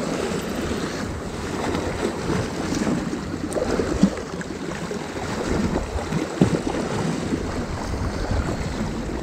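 Wind buffeting the microphone over sea water washing against rocks, a steady rushing noise with a few brief knocks.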